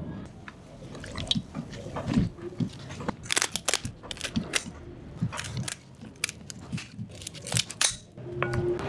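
Kitchen shears crunching and snapping through the bones of a raw whole chicken as it is cut into quarters, in a string of sharp cracks that starts a couple of seconds in.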